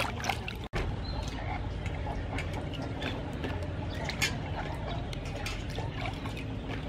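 Water sloshing and splashing in a stainless steel bowl as hands rub and rinse okra pods, in a string of small irregular splashes. Faint bird calls sound behind it.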